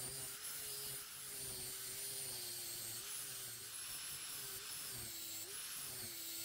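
Handheld electric angle grinder running as it grinds the top of a steel railroad rail, a fairly quiet whine that wavers and dips in pitch several times.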